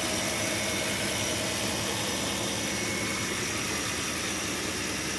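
Ford 5.0-litre V8 idling steadily, heard from underneath the truck, its exhaust complete with a newly fitted catalytic converter.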